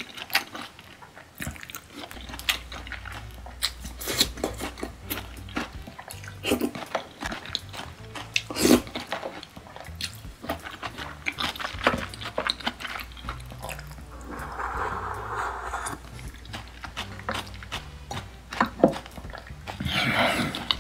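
Close-miked chewing of soft sushi (rice topped with beef tartare and sea urchin): wet mouth sounds with many small sharp clicks and smacks, and a spoonful taken about halfway through.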